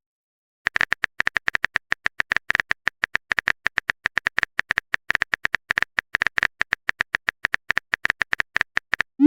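Rapid, evenly spaced keyboard-tap clicks of a phone texting sound effect, about nine a second, starting a little under a second in and running almost to the end.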